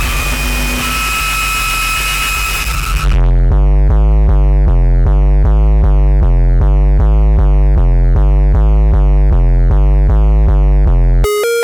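Electronic alarm sound effects: a harsh static-like hiss with thin steady whistling tones, which cuts at about three seconds to a loud low buzzer alternating between two pitches about three times a second. Near the end a beeping tone starts climbing in steps.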